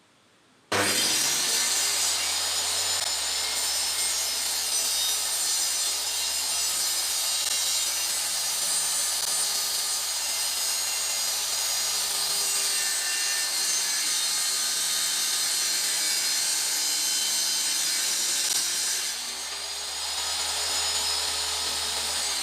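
Homemade table saw cutting wood: a steady, continuous sawing noise over the motor's hum. It starts abruptly, eases briefly near the end, then resumes and cuts off sharply.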